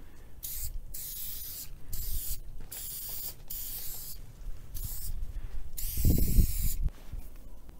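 Aerosol spray-paint can sprayed in a series of short hissing bursts, about seven, the longest near the end with a low thump beneath it.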